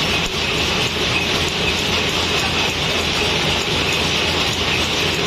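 Workshop machinery running: a steady, dense mechanical clatter with a low hum underneath.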